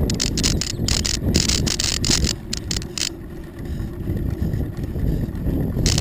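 Wind buffeting the microphone of a camera on a moving bicycle, over a low rumble of the tyres on pavement. The buffeting eases briefly around the middle and then picks up again.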